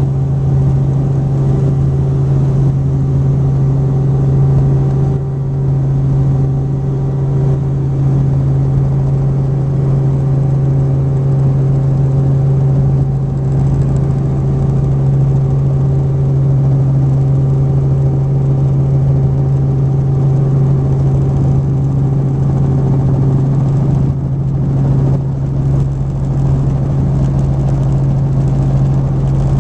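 Helicopter in flight, heard on board: a loud, steady drone of engine and rotors with a strong low hum and fainter tones above it.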